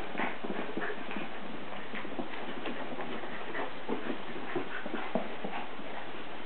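Papillon and sheltie dogs play-fighting, scuffling, with many short irregular clicks and taps.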